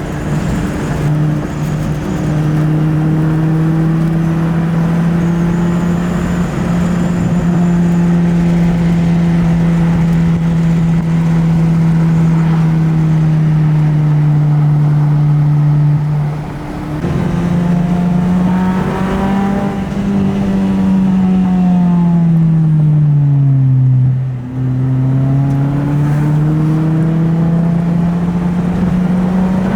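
Engine of an H22-swapped Honda Accord wagon, a four-cylinder, running under way. Its note holds steady for about half the time, drops out briefly, climbs, falls away over a few seconds, then climbs again near the end as the car shifts and accelerates.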